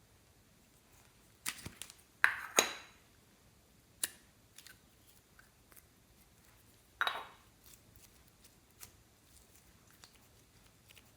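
A few scattered, sharp crackles and clicks from handling slime-making materials. The loudest are two close together about two and a half seconds in and another about seven seconds in, with fainter ticks between.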